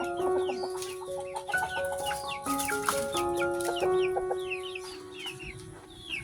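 Chickens calling, with many short, high, falling cheeps repeating quickly, over background music of slow held notes.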